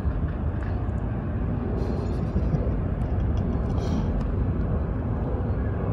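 Steady low outdoor rumble, with a few faint ticks in the middle.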